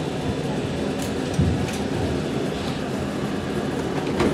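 Airport bag-drop baggage conveyor machinery running with a steady rumble and low hum, with one low thump about a second and a half in and a few light clicks.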